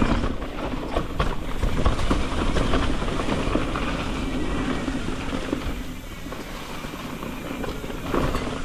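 Electric mountain bike rolling fast downhill over rough dirt trail: steady tyre rumble with frequent rattles and knocks from the bike, and wind on the microphone.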